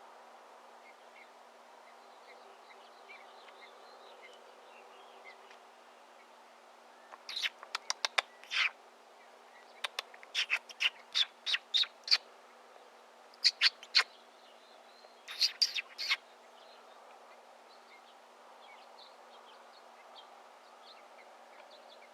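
A bird chirping close by in four quick clusters of sharp, short calls, loud against fainter scattered birdsong in the background.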